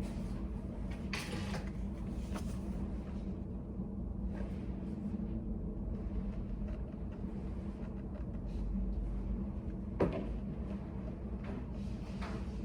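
Room ambience in a study cafe: a steady low hum with faint scattered clicks and taps, and one sharper knock about ten seconds in.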